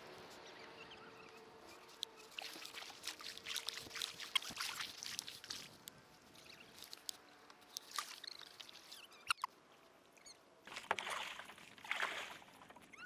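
Kayak paddle strokes splashing and dripping in the water, irregular, with two louder splashes near the end.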